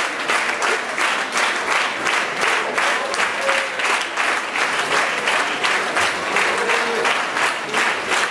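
An audience and choir applauding: dense, steady clapping from many hands.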